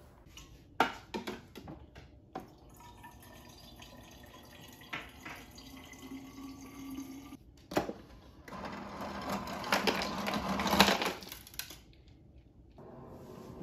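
Several light clicks and knocks, then water running for about three seconds near the end.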